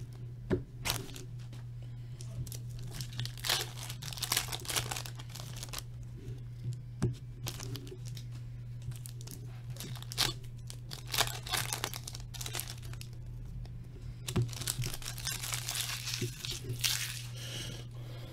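Trading card pack wrappers being torn open and crinkled by hand: a string of short, irregular ripping and rustling noises over a steady low hum.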